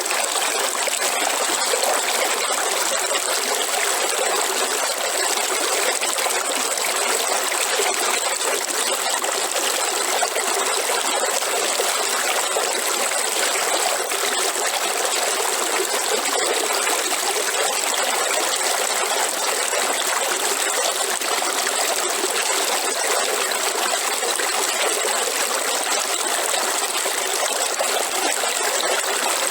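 River water flowing, a steady rush without pause and with little low rumble.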